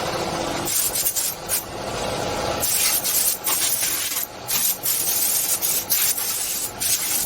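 Wood being sanded: a rough, rubbing scrape in uneven strokes with short breaks.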